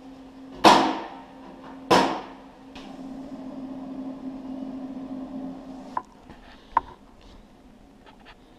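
Two sharp bangs about a second apart while a Northern Industrial wire-feed welder hums steadily. The hum cuts off with a click about six seconds in, followed by another click.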